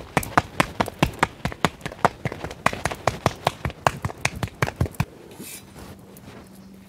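Hands slapping a ball of wheat dough back and forth between the palms to flatten a thick hand-made roti (tikkar). A quick, even run of soft pats, about five a second, stops about five seconds in.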